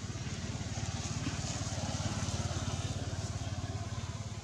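An engine running with a low, rapidly pulsing rumble, growing louder toward the middle and easing off near the end.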